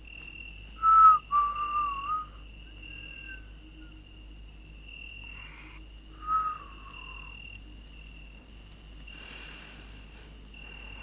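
A few short whistled notes, the loudest about a second in and the last one falling, over a steady high chirping of night insects. A breathy rush of noise comes near the end.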